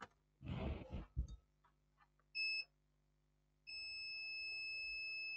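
Multimeter continuity beeper sounding as its probes are touched across a 0.63-ohm jumper resistor used in place of a fuse. A short beep comes about two and a half seconds in, then a steady high beep from nearly four seconds in, showing a closed, near-zero-ohm path. Some rustling and clicking of probe handling comes in the first second.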